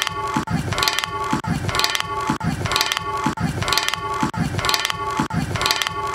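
A short electronically looped sample repeating about once a second, each repeat a low thump with a bright crash and a ringing tone over it, like a simple looped beat.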